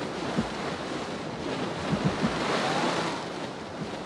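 Whitewater rushing over a river falls: a steady noise of churning water that swells a little about two to three seconds in.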